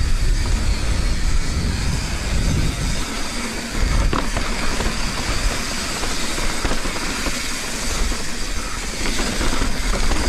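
Mountain bike riding down a dirt trail: tyres rumbling over dirt and rock and the bike rattling, with wind buffeting the action camera's microphone. A few sharp knocks come about four seconds in.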